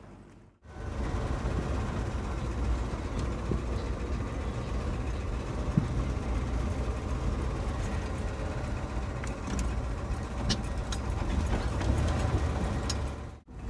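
1977 Jeep J10 pickup driving over a wet dirt track, heard from inside the cab: a steady engine and road rumble, heaviest in the low end, with scattered clicks and rattles. It starts abruptly about half a second in.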